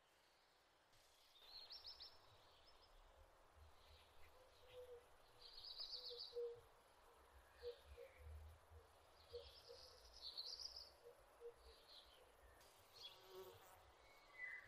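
Faint outdoor nature ambience: scattered short high chirps and trills every second or so over a low rumble.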